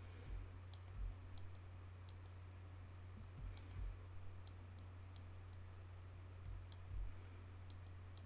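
Computer mouse button clicking repeatedly, about two sharp clicks a second at uneven intervals, over a steady low hum.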